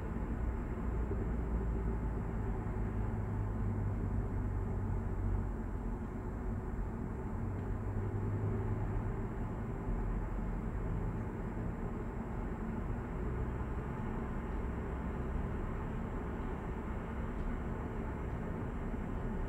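Steady in-cabin road noise from a Hyundai Avante AD (Elantra) cruising through a road tunnel: a low, even rumble of tyres and engine with no breaks or sudden sounds.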